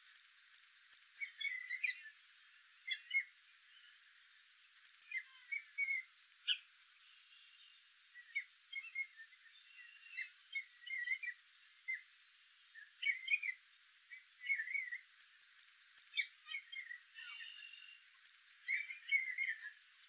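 Gray catbird singing: a long, rambling run of short, varied phrases, one after another with brief pauses between them.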